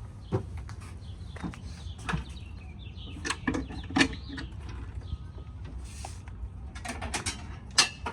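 Scattered sharp clicks and knocks of a locksmith's tools being handled at a locked car, a few of them loud, over a steady low rumble.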